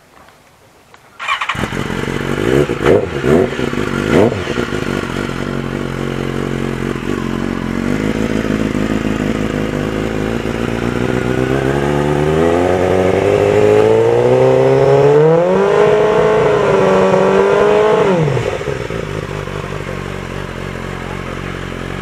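BMW S 1000 RR inline-four race superbike started up through its race exhaust, with a few quick throttle blips and then idling. The revs climb smoothly, are held at a fixed high engine speed for a few seconds, and drop sharply back to idle: a scrutineering exhaust-noise test at a set RPM.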